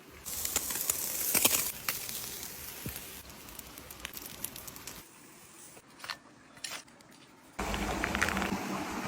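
Crackling and popping of an outdoor cooking fire, made of sharp irregular clicks over a hiss. It comes in a series of edited clips that change abruptly just after the start, about five seconds in and about seven and a half seconds in.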